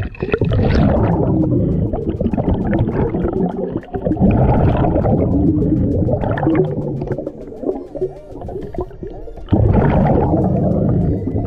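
Underwater, a diver's exhaled air bubbling loudly out of a hookah regulator, in long gurgling bursts broken by short quieter pauses between breaths.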